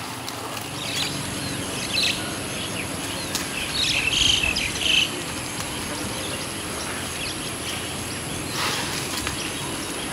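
Outdoor ambience of birds chirping in short bursts, the loudest cluster about four to five seconds in, over a steady high insect drone.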